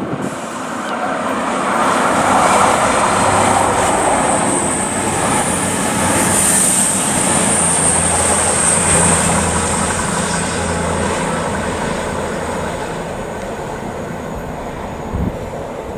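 A CrossCountry Voyager diesel multiple unit passes close by, its underfloor diesel engines droning and its wheels rumbling on the rails. The sound swells over the first couple of seconds and stays loud with a high whine for several seconds before slowly easing off.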